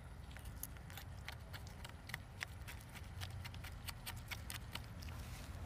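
Flathead screwdriver blade scraping caked grime off the teeth of a bicycle rear derailleur's pulley wheel: faint, irregular clicks and scrapes.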